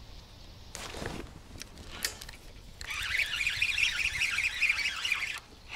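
Spinning reel on a feeder rod whirring steadily as line is wound in, starting about three seconds in, after a brief swish about a second in.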